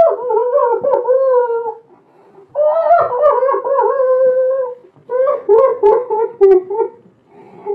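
A person crying in loud, high, drawn-out wails: three of them, each about two seconds long, with short breaks between and a wavering pitch.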